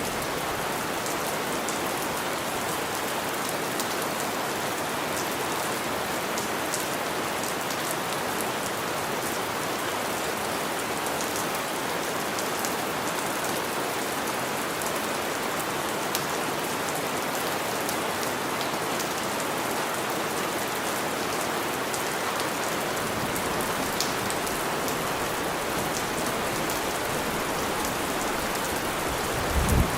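Steady heavy rain falling and pattering on surfaces, with scattered sharp drop ticks. A short low thud comes right at the end.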